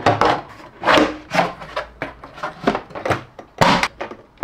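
3D-printed PLA plastic enclosure parts being handled and fitted together: an irregular string of short scrapes and knocks of plastic rubbing and bumping on plastic, about two a second.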